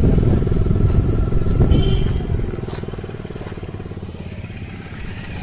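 Motorcycle engine running as it passes close by, loudest at first and then fading away over the following seconds.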